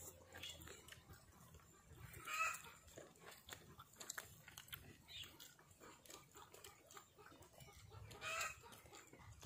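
Chickens clucking faintly in the background, three short calls spaced a few seconds apart, over faint clicks and smacks of people eating with their hands.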